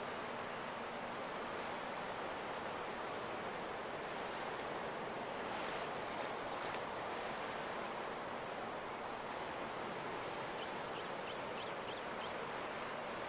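Steady, even wash of ocean surf. A quick run of about six faint, short high chirps comes about two-thirds of the way in.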